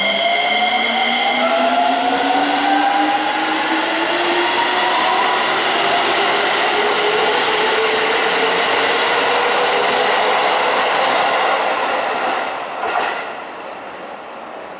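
Keisei 3000 series electric train pulling away, its Toyo IGBT-VVVF inverter whining: a few steady high tones for about the first second and a half, then tones that climb steadily in pitch as the train gathers speed, over loud rolling noise from the wheels. About 13 seconds in there is a brief louder burst as the last car passes, then the sound drops away.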